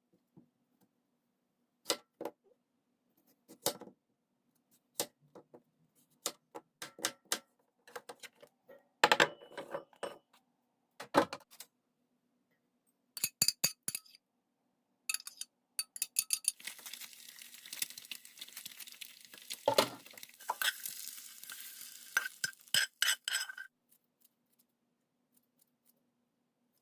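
Kitchen utensils and dishes clinking and knocking now and then. From a little past halfway, a steady hiss runs for about seven seconds under further clinks, then stops.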